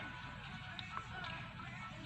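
Background music playing quietly, with steady held notes.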